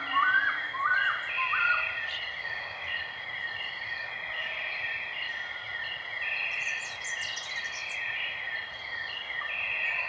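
Insects chirping in a steadily repeating pattern over a constant high tone, with a few bird whistles in the first two seconds and brief high bird chirps about seven seconds in.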